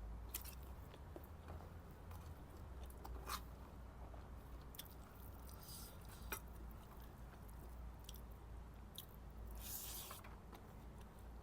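Close-miked chewing of a mouthful of biryani, with scattered small clicks and a brief hissy rustle about ten seconds in, over a low steady hum.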